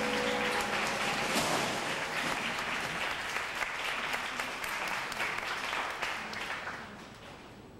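Audience applauding, a dense clapping that dies away near the end. Music trails off in the first moments.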